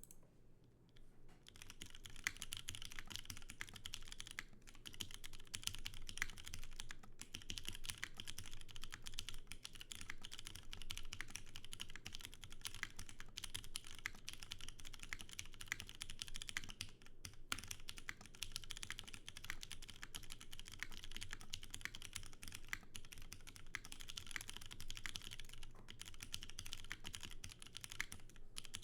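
Steady typing on a top-mount custom mechanical keyboard with an aluminum plate and lubed, filmed Cherry MX2A Clear tactile switches under GMK keycaps. The keystrokes start about a second and a half in and run thick and fast, with a few short pauses.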